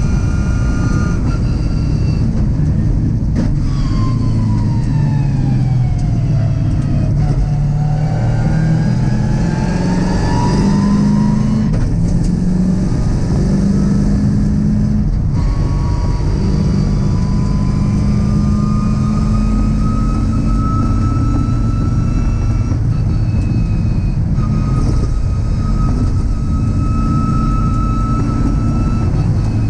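Mazda MX-5's swapped-in GM LS V8 engine heard from the onboard camera at racing speed. The revs fall as the car slows for a corner a few seconds in, climb again under acceleration, then rise slowly in a long pull down the straight, over steady road and wind noise.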